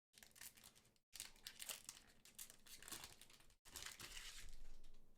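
A One Piece Card Game booster pack wrapper crinkling and tearing open as it is handled, in three stretches broken by sudden drops to silence.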